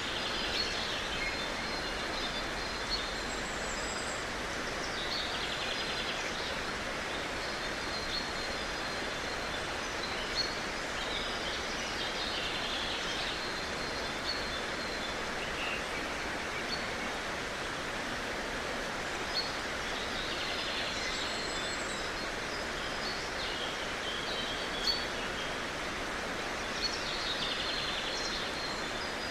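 Steady outdoor ambience: an even rushing noise, with clusters of high chirping calls every several seconds and a few short ticks.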